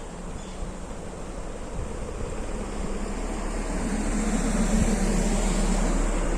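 A car passing by: its noise swells to a peak about four to five seconds in and then eases off, over a steady low rumble.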